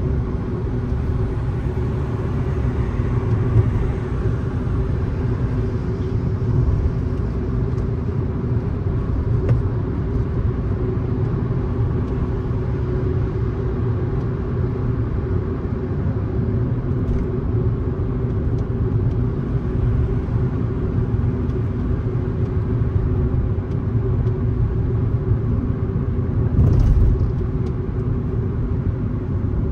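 Steady low rumble of a car driving, tyre and engine noise, with a brief louder bump near the end.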